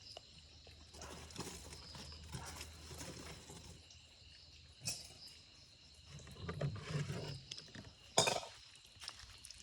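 Two sharp knocks about three seconds apart, a knife or cleaver striking the cutting block while a large catla carp is cut, over a faint low hum and distant murmur.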